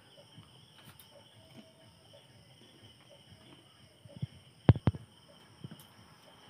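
Crickets chirping steadily in the background, with a few sharp knocks about three-quarters of the way through, two of them close together, as a freshly slaughtered chicken is handled and lifted over a metal bucket.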